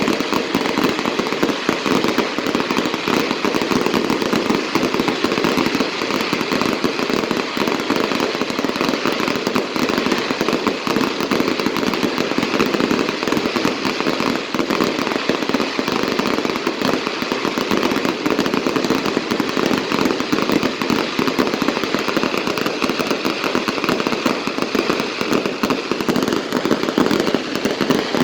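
Fireworks going off in a dense, unbroken crackle of rapid pops that never pauses.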